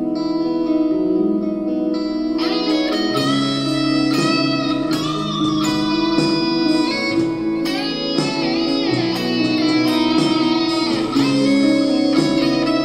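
Electric guitar lead solo played over sustained low backing notes, starting with held notes and turning busier, with quick picked runs, from about two seconds in.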